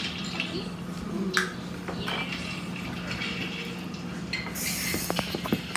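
Bowls and utensils handled on a table: light knocks and scrapes, a rushing noise about four and a half seconds in, and a few sharp clicks near the end, over a steady low hum.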